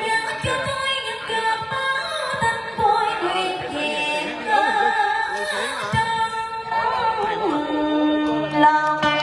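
A woman singing vọng cổ, the slow Southern Vietnamese cải lương song, through a microphone and PA speakers, with instrumental accompaniment. Steady held instrument notes run beneath her voice, and a lower sustained note comes in near the end.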